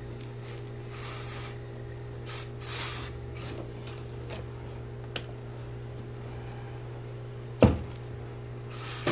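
Short hisses and fabric rubbing from a hose-fed steam iron being worked over suit trousers, with a steady low hum throughout. One sharp knock comes late on.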